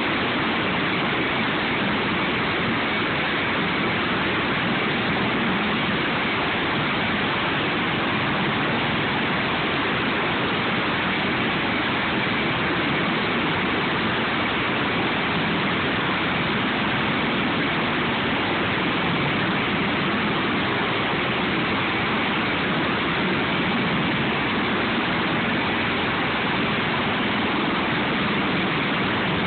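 Sikorsky MH-53E helicopter running on the ground with its rotor turning: a loud, steady rushing noise from the turbine engines and rotor, with a faint high whine held throughout.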